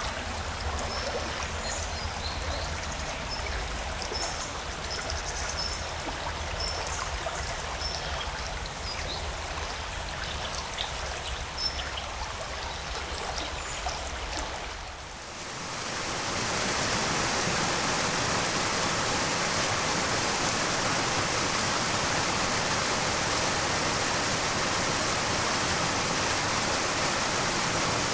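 Running water: a stream's steady rush with a low rumble and scattered short high chirps. About halfway through it dips briefly and gives way to a louder, steady rushing of water, like a waterfall.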